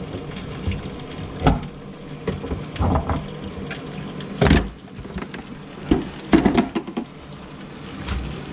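Hand tools knocking and clunking as they are handled in a plastic tub, several separate knocks, the loudest about four and a half and six and a half seconds in.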